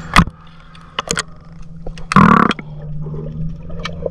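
Water sloshing and gurgling against a camera held at the surface, with a sharp knock just after the start, a few clicks about a second in, and a loud half-second rush of water about two seconds in as the camera goes under. A steady low hum follows.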